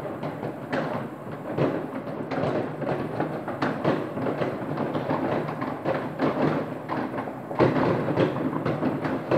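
Many fireworks going off across a town at once: a continuous jumble of overlapping bangs, thumps and crackles, with one louder bang about two thirds of the way through.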